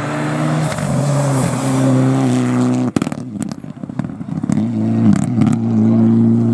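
Mitsubishi Lancer Evolution rally car's turbocharged four-cylinder engine at high revs, its note dipping and climbing through gear changes. About three seconds in the engine note drops suddenly, with a few sharp cracks, then rises again through more gear changes.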